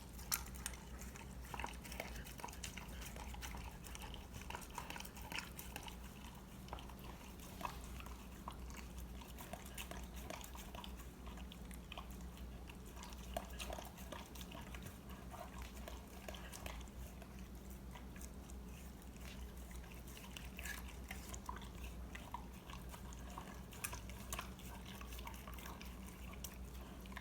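A dog chewing a whole raw Cornish hen: faint, irregular crunches and wet clicks of biting and chewing throughout, over a low steady hum.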